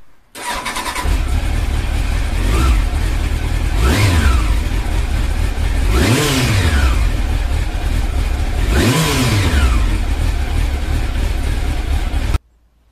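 Honda CB1000 Super Four's inline-four engine cranks briefly and catches on the first try, then idles with four throttle blips that rise and fall in pitch. It is running well after an oil change. The sound cuts off suddenly near the end.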